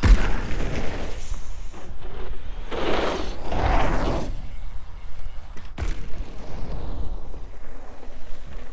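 Mountain bike on dirt jumps: a heavy landing thump right at the start, then tyres rolling and scrubbing over hard-packed dirt. The tyre noise swells to a loud rush about three to four seconds in, and there is a sharp click near six seconds.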